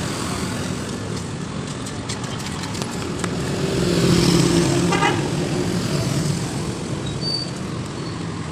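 Street traffic: a motor vehicle engine passes, loudest about four to five seconds in, over steady road noise.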